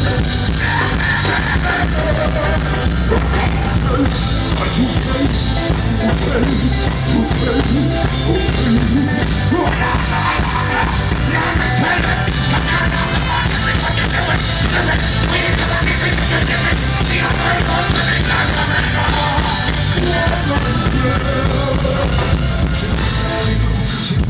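Loud amplified music with singing and a heavy bass line, played through a PA system.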